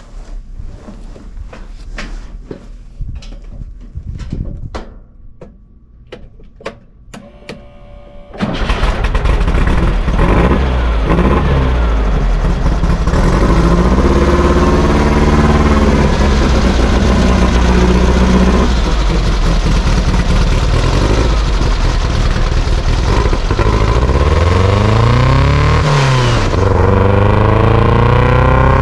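Scattered clicks and knocks, then about eight seconds in a sand buggy's engine comes in suddenly and runs loudly, revving up and down again and again.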